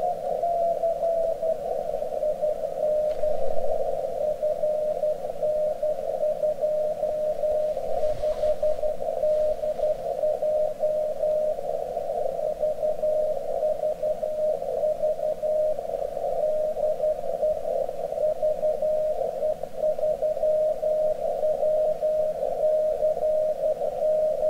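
33-centimetre amateur radio CW beacon VE3WCC received on an RTL-SDR dongle in SDR#'s CW mode: a mid-pitched Morse tone keyed on and off over a narrow band of receiver hiss. The tone slides down a little in pitch in the first two seconds as the receiver is tuned onto it, then holds steady.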